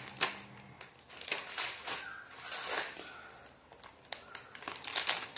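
Paper and plastic wrappers crinkling and rustling as they are handled and crumpled, with a few small clicks and taps.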